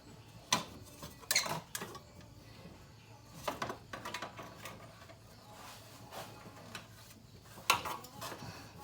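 Scattered sharp clicks and clanks of hand tools and metal mounting parts being handled while a radiator cooling fan is fitted, with the loudest knocks about half a second, one and a half, and near eight seconds in.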